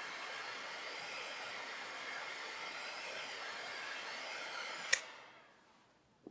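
Heat gun blowing steadily onto folded leather, then switched off with a sharp click about five seconds in, its fan winding down over about a second.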